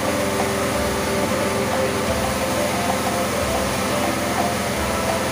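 Pressure washer running, its jet of water spraying hard against a motorcycle with a steady hiss, over a machine rumble that throbs a little more than once a second.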